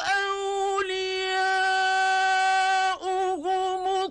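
Man reciting the Quran in the melodic mujawwad style, holding one long sung note with a steady pitch. Near the end the note breaks into a few quick wavering turns, then cuts off.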